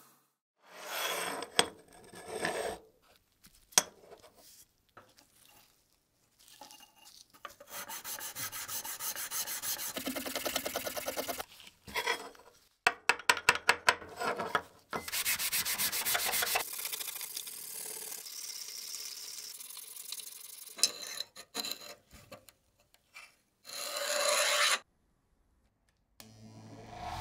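Hands working and handling cleaned metal parts: a string of separate rubbing and scraping strokes, some runs fast and rasping, with sharp clicks between them. Near the end, a rocker power switch on a bench machine is pressed.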